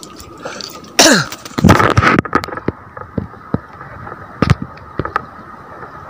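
A man coughing twice, hard and short, about a second in, the first cough falling in pitch. A few light knocks follow.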